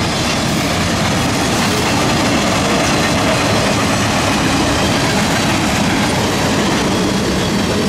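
Freight train cars rolling past, a loud, steady noise of steel wheels running on the rails.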